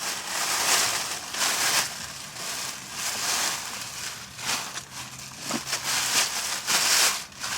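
Shopping bag rustling and crinkling as it is handled and opened to take out a sweater, in short irregular bursts of crackly noise.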